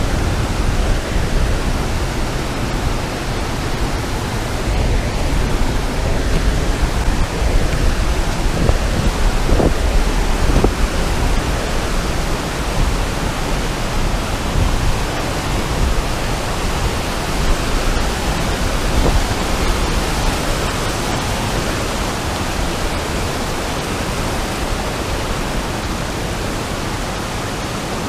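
Steady, loud rush of a fast mountain river running white over boulders.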